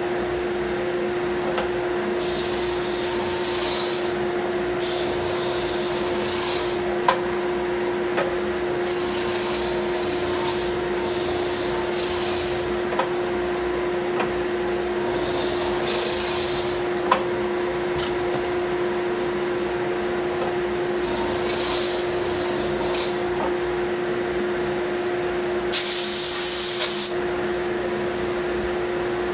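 Workshop dust collector running with a steady hum, while wood is sanded in bursts of hissing every few seconds; the loudest burst comes near the end.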